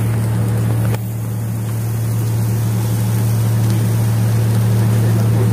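A boat's engine running steadily, a loud low drone with wind and water noise over it; it drops suddenly about a second in, then slowly builds back.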